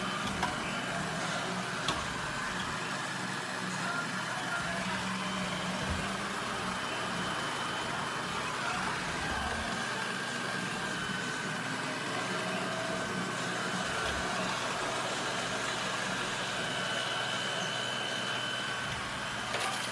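Robot vacuum running: a steady motor hum with a high, even whine.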